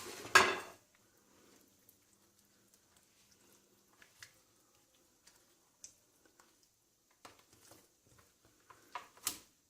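Hands rubbing an oily garlic-and-spice marinade into a raw chicken: faint, scattered wet squishing and patting. A short clatter comes right at the start, and a few sharper clicks come near the end.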